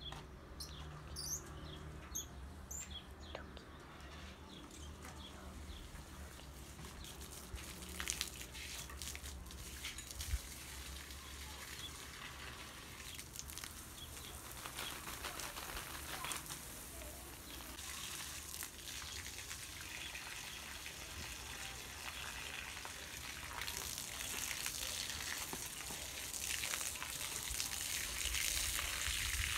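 Water from a garden hose spraying onto soil and seedlings: a steady hiss that grows louder near the end. Birds chirp a few times at the start.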